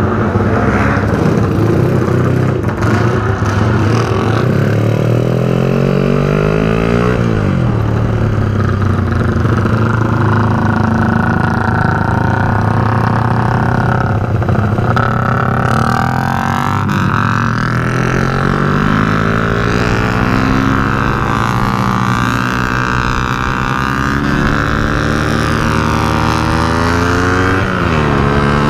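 Motorcycle engine running hard, its pitch climbing and then dropping back as it changes gear, with a steep rise in revs near the end.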